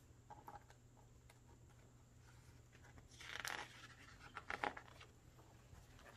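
A page of a hardcover picture book being turned: a soft paper swish about three seconds in, then a few crisp rustles a second later, over faint room tone.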